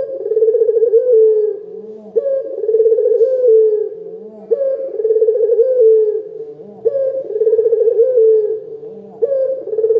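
A puter lokal (caged collared dove) cooing: a loud, rolling, pulsing coo, repeated five times about every two and a quarter seconds.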